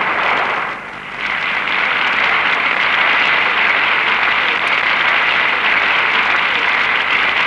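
Crowd applauding, a dense, even clapping that dips briefly about a second in.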